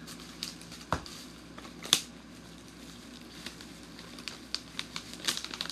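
A plastic packaging pouch being handled and crinkled, with scattered light clicks and taps. There is a dull thump about a second in and a sharper click about two seconds in.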